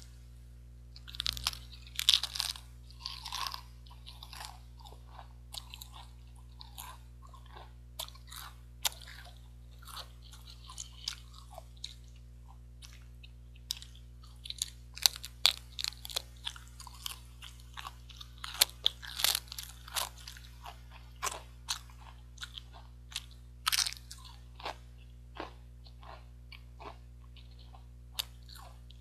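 Close-miked crunching and chewing of Pringles potato crisps: bursts of sharp crunches as chips are bitten and broken down, with quieter chewing between them.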